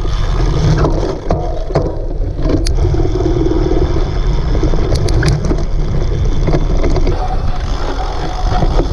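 Heavy wind noise buffeting the microphone of a camera on a cyclocross bike being ridden hard over rough ground, with a few sharp clicks.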